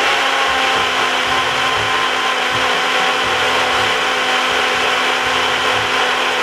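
Personal single-serve blender running steadily, its motor held on with a constant whine as it blends a watery green smoothie of kale and other greens.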